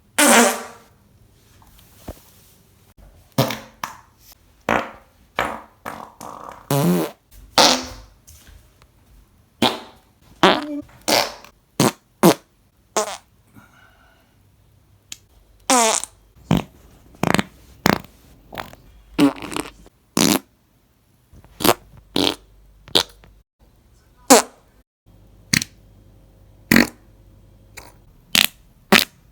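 A rapid series of human farts, roughly one a second: mostly short blasts, some drawn out with a rippling, wavering pitch.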